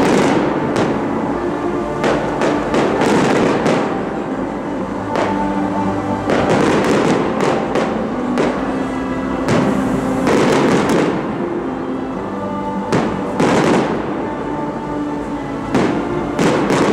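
Aerial firework shells bursting overhead, a run of bangs and crackles every second or two, over loud music playing with the display.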